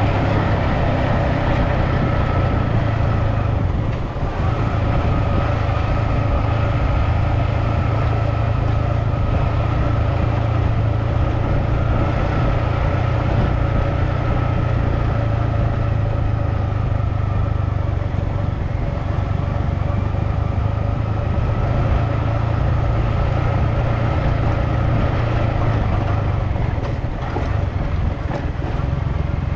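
Motor vehicle travelling along a road: a steady, loud engine and road rumble.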